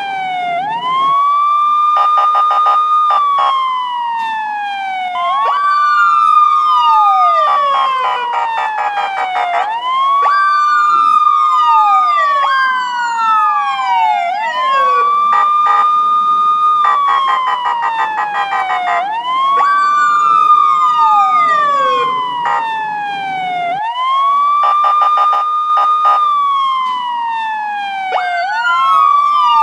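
Police siren wailing: a tone rises, holds high, then slides down, about once every four and a half seconds. A second, quicker falling sweep and a rapid pulsing overlap it.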